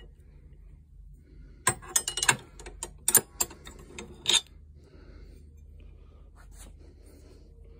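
Steel combination wrenches clinking against one another in a tool box drawer as they are handled, set back and pulled out. A quick run of sharp metallic clinks about two to four seconds in, then softer handling sounds.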